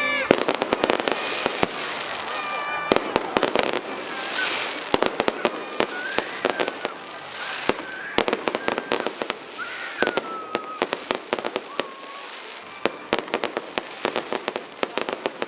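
Fireworks show bursting in rapid, irregular volleys of sharp bangs and crackles.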